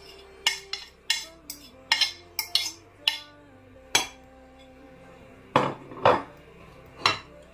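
Metal fork scraping and clinking against a ceramic plate and bowl as seafood filling is scraped off the plate and stirred, in irregular clicks with a louder pair of knocks about six seconds in.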